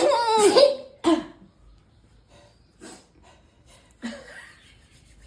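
A person's loud sneeze: a pitched, wavering wind-up of about a second, then a sharp burst, with a weaker burst about four seconds in.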